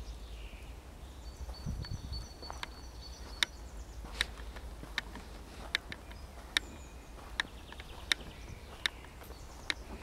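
Middle spotted woodpecker pecking at wood: sharp single taps at a steady pace of a little more than one a second, starting about a third of the way in. Before the taps begin, a high whistled songbird phrase sounds over forest background.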